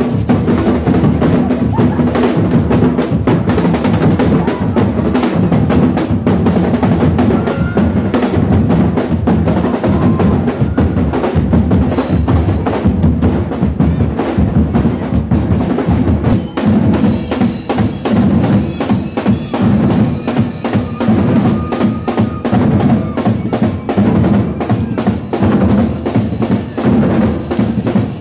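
A street drum band of many drummers playing loudly together: bass drums and snare drums beat a fast, steady rhythm, with sharp clicks like a wood block over it.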